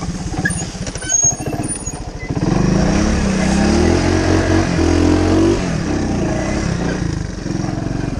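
1985 Honda ATC 125 three-wheeler's single-cylinder four-stroke engine running while being ridden. About two seconds in it revs up and runs harder for some three seconds, its pitch climbing, then drops back.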